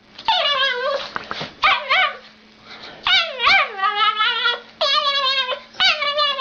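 A dog whining and yipping in a string of high, wavering calls that rise and fall in pitch, with short pauses between them.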